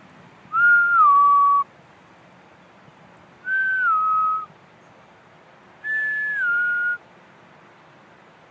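A person whistling three two-note calls close to the microphone, each a held note that slides down to a lower held note, about a second long. Each call starts a little higher than the last.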